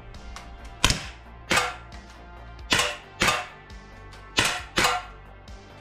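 CO2 air pistols, a Sig Sauer P226 and an Umarex SA-10, firing six sharp pops, roughly in three pairs.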